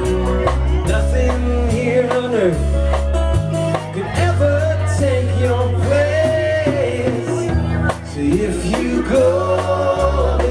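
Live rock band playing: drum kit with cymbal hits, bass and guitar, with a long, bending melody line over the top.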